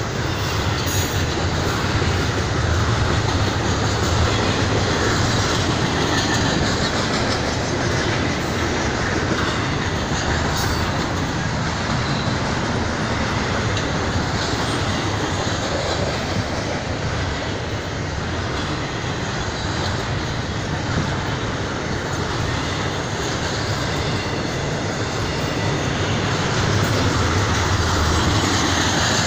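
Norfolk Southern intermodal freight train's double-stack container well cars rolling past, steel wheels running steadily on the rails.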